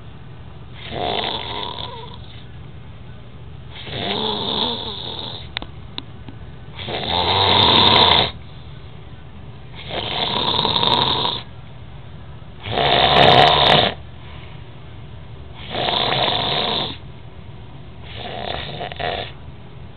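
A sleeping pet snoring: seven snores about three seconds apart, each about a second long, the loudest two about a third and two thirds of the way through.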